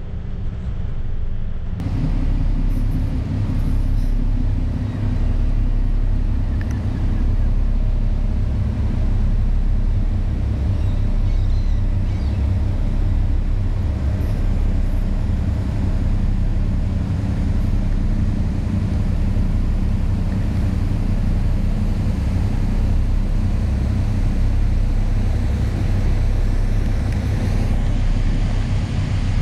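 Steady low drone of the Great Lakes freighter Paul R. Tregurtha's diesel engines as the ship passes close by, with wind on the microphone.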